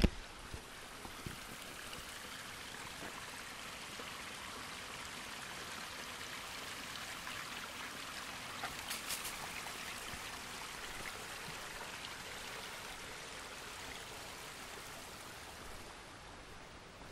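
Small woodland stream running, a steady rushing that swells over the first few seconds, is loudest about halfway, then fades toward the end; a few sharp clicks about halfway through.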